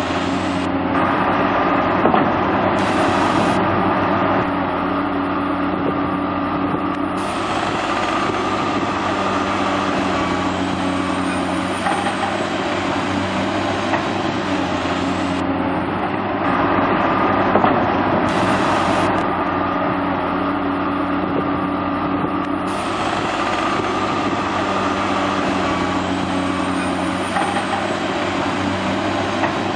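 Heavy diesel engine running steadily under load, a low hum with a noisy top. The same stretch of sound repeats about every 15 seconds.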